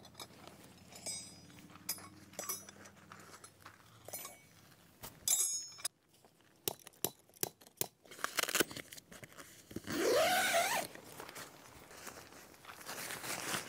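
Camping gear being handled and set up: scattered metal clinks, clicks and knocks, with a quick run of clicks about seven seconds in. About ten seconds in comes a loud, brief sound rising in pitch, followed by steady rustling.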